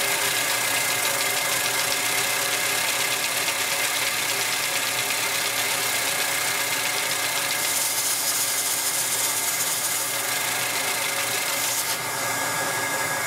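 Lego four-cylinder 'M4' engine running fast on air blown in through a hand-held nozzle: a steady mechanical whir with the hiss of the air. The sound changes slightly near the end as the nozzle is drawn back.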